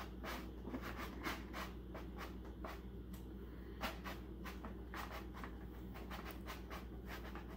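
Plastic clicking and scraping of a toy slime factory's mixing cup as its pink top is pressed and worked by hand, in quick irregular clicks about three a second.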